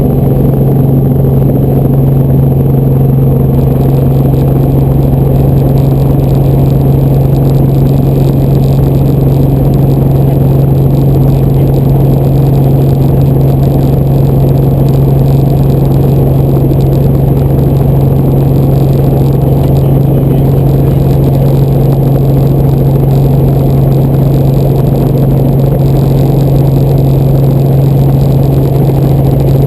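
Helicopter running: a loud, steady drone with a strong constant low hum.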